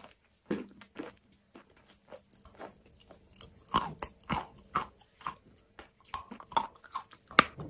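A mouthful of chalk being chewed: irregular crunches, sparse and soft at first, then a denser, louder run of crunches from about four seconds in.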